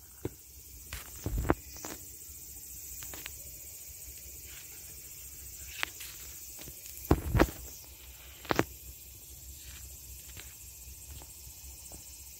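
Scattered knocks, rubs and clicks of a handheld phone being moved about, loudest as a double bump about seven seconds in and a sharp click soon after. Under them runs a steady, faint, high hiss.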